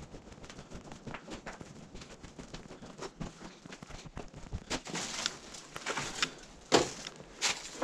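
Footsteps scuffing and crackling over broken debris on a concrete floor, growing louder and sharper in the last few seconds.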